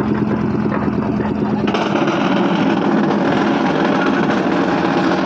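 Engine of site machinery running steadily; about two seconds in, its low hum gives way to a louder, brighter mechanical noise.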